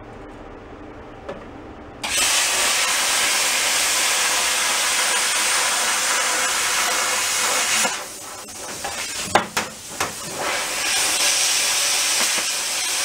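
Plasma cutter torch cutting sheet metal: a loud, steady hiss of arc and air that starts abruptly about two seconds in. It breaks off for a couple of seconds with a few sharp clicks and knocks, then starts again for a second cut.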